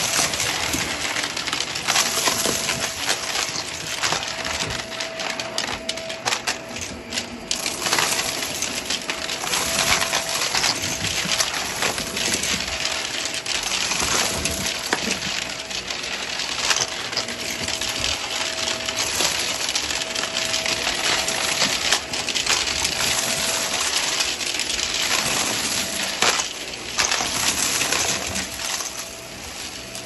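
Upright vacuum cleaner running over carpet, sucking up glittery debris that clatters and rattles through the head in quick, dense clicks, with a faint steady whine in the background.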